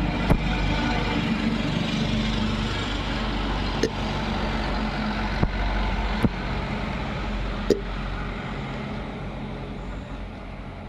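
A motor vehicle's engine running steadily, fading near the end, with about five short, sharp hiccups from a girl spread one to three seconds apart across it.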